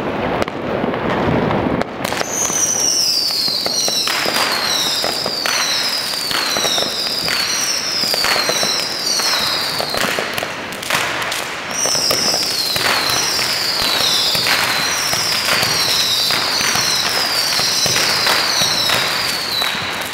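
A 19-shot Dynasty firework cake firing shot after shot, about one every three-quarters of a second, each a whistle falling in pitch amid cracks and pops. The shots stop for about two seconds midway, then start again.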